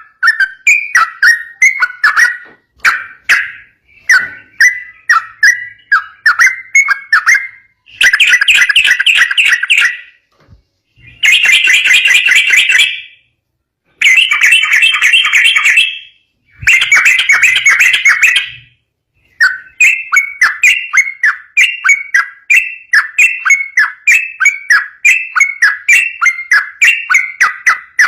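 Yellow-vented bulbul singing a fast, continuous string of short falling chirps. In the middle the chirps give way to four dense, rapid trills of about two seconds each, then the chirping resumes.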